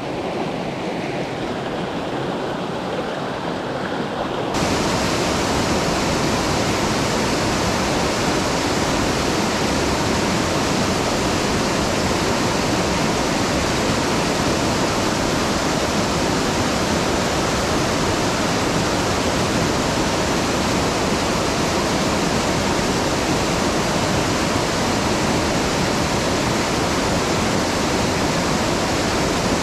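Rushing water of a mountain stream, a steady even roar; about four and a half seconds in it turns abruptly louder and brighter and holds that way.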